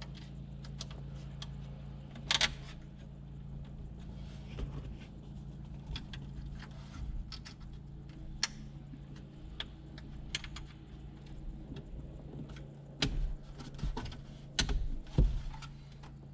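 Scattered clicks and small rattles of metal clips being pulled off the old dash bezel's tabs and slid onto the new double-DIN bezel's tabs, with a cluster of sharper snaps near the end.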